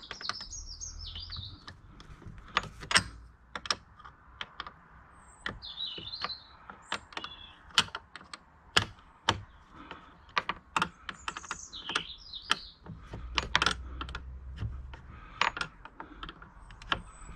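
Spanner working the rear spoiler's retaining nuts inside the tailgate: irregular sharp metallic clicks. Birds chirp in the background several times.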